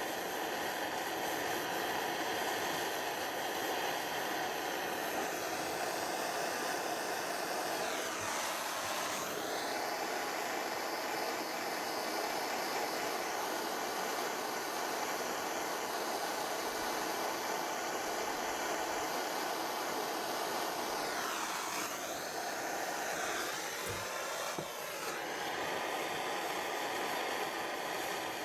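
Blow lamp flame burning steadily with a constant rushing hiss as it heats a tube joint for silver soldering. Its tone sweeps briefly about eight seconds in and again a little after twenty seconds.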